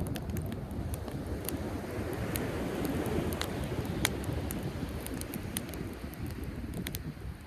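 Driftwood campfire crackling with sharp, irregular pops, over the low rush of sea waves that swells about three seconds in. Some wind buffets the microphone.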